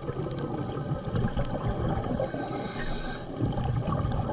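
Muffled underwater noise around a diver: an irregular low rumble with bubbling, and a few faint sharp clicks.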